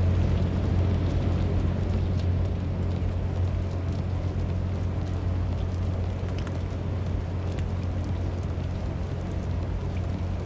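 Steady rain falling on wet pavement, with scattered drop ticks over an even hiss and a steady low rumble underneath.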